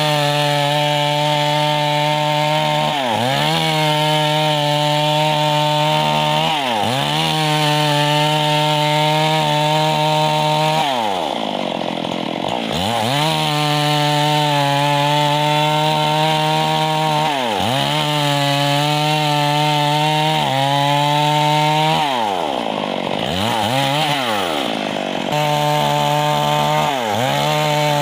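Stihl MS 382 two-stroke chainsaw ripping a log lengthwise along the grain, held at full throttle under load for a few seconds at a time. Several times the engine pitch drops and climbs back as the throttle is eased off and opened again.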